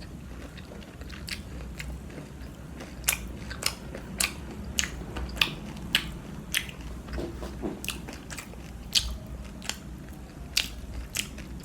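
Crunchy bites and chewing of breaded soy garlic chicken: irregular sharp crunches, roughly one every half second, starting about a second in.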